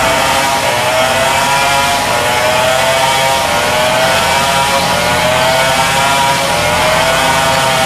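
A heavy truck's diesel engine working hard under load, its pitch rising again and again in slow waves as it revs.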